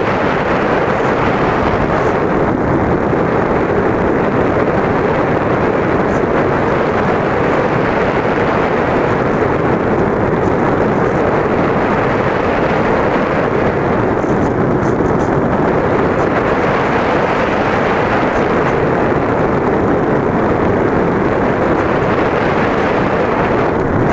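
RC plane in flight heard from on board: the motor's steady noise mixed with rushing air on the microphone, loud and unchanging throughout.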